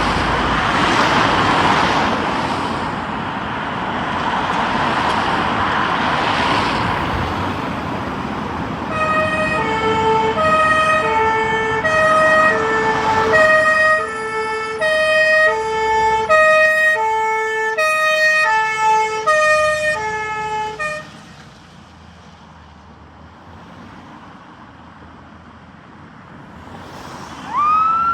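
Fire engine turning out: a loud engine rumble, then its two-tone horns sounding high-low, alternating about once a second for around twelve seconds before stopping. Near the end a siren winds up in a rising wail.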